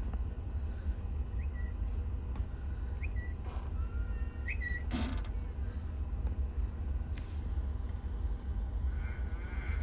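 Steady low hum inside the cabin of a Tesla Model S while it charges at a Supercharger, with a few faint short chirps in the first half and a single sharp click about five seconds in.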